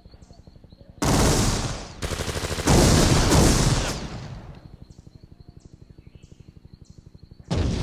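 Automatic gunfire: a fast, quiet rattle of rapid shots, with loud bursts of fire twice in the first half and again near the end.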